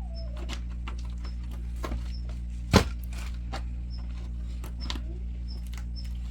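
A machine running with a steady low hum, with one sharp knock nearly three seconds in, a few fainter clicks, and short faint high chirps about once a second.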